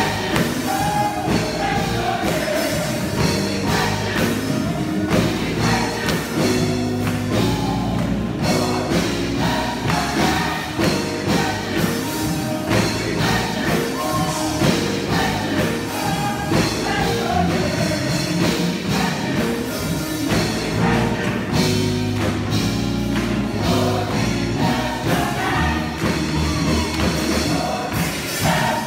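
Gospel choir singing in full voice over a steady beat.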